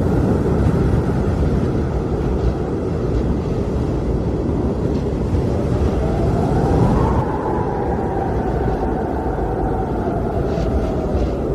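Blizzard wind blowing in a steady, deep rush. About halfway through, a whistling tone rises and then slowly falls.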